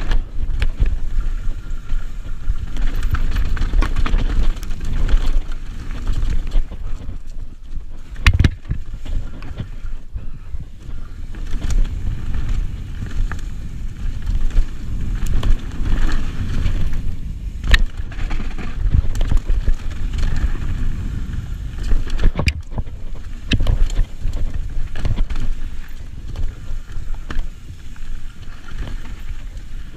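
Mountain bike riding down a rocky forest trail: wind rumbling on the camera microphone and the rolling, rattling noise of the bike, broken by a few sharp knocks as the wheels hit rocks and roots.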